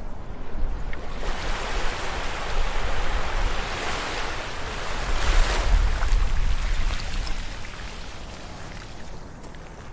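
Ocean surf: a wave breaks and washes up the beach, swelling from about a second in with a deep rumble at its loudest near the middle, then draining away toward the end.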